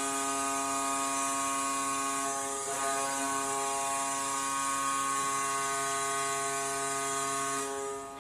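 Tampa Bay Lightning arena goal horn sounding one long, steady blast that cuts off near the end.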